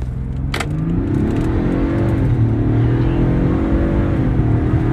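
Ford F-150 PowerBoost's 3.5-litre twin-turbo V6 hybrid accelerating hard under full throttle. The engine pitch climbs, then drops at upshifts about two and four seconds in.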